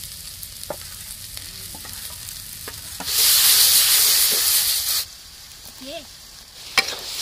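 Ground spice paste frying in hot mustard oil with onions in a kadai. A low sizzle with light clicks runs for about three seconds, then a loud sizzle flares as the paste spreads into the oil and drops off about two seconds later. A sharp knock comes near the end.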